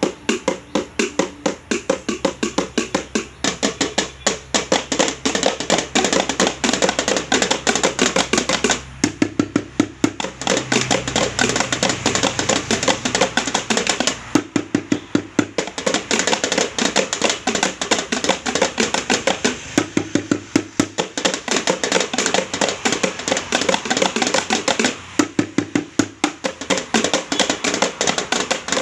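Improvised drumming: sticks beaten fast and steadily on plastic buckets, a stacked tiffin carrier, containers and a plate. It breaks off briefly about nine, fourteen and twenty-five seconds in.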